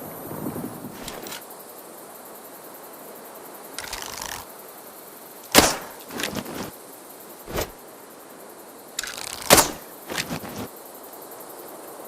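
A bow being shot twice: two loud, sharp snaps about four seconds apart. Each snap comes just after a short rustle and is followed by a few smaller knocks.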